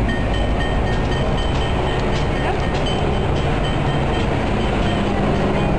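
Loud, steady rumble of passing road traffic, with a few faint high tones and light clicks on top.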